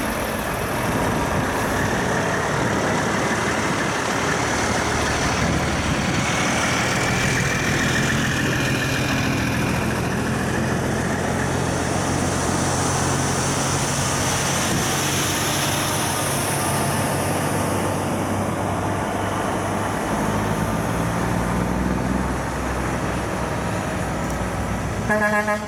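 Heavy diesel trucks, Kenworth and Freightliner prime movers, driving past one after another in a convoy: a steady engine and tyre rumble that swells and eases as each truck goes by. Near the end comes a short, loud, pitched blast.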